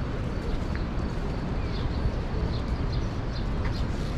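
Beach ambience: a steady low rumble of wind and surf, with a few short, faint high bird chirps over it.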